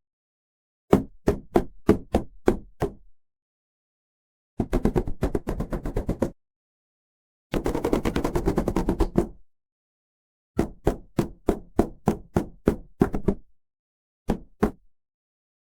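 Loud banging impacts in separate bursts with dead silence between them. First comes a run of about six heavy bangs. Then two rapid rattling flurries of many strikes each. Then another run of about eight bangs, and a final pair.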